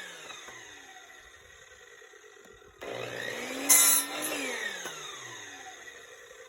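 Miter saw cutting slab wood for kindling: the motor switches on about three seconds in, the blade cuts through the slab with a loud burst about a second later, and the motor then winds down with a falling whine. The opening second holds the fading wind-down of the previous cut.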